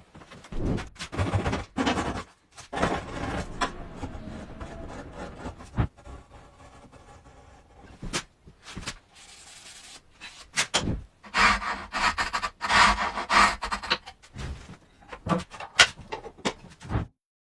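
Hand tools working wood: irregular bursts of rasping, scraping strokes with a few sharp knocks, stopping abruptly near the end.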